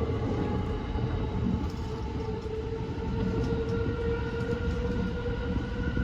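E235-1000 series electric train running along the track: a steady low rumble of wheels on rail under a constant whine of several held tones from the traction motors.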